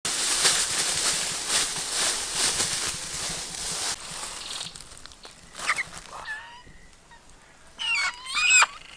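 Dry bamboo leaves crackling and rustling under someone crawling over them. About halfway through, a hen starts clucking in short, rising and falling calls, then squawks loudly near the end while being held.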